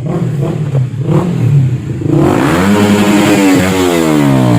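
Loud motorcycle with a noisy exhaust: the engine note swells and rises about two seconds in, then its pitch slides steadily down as it keeps running loudly.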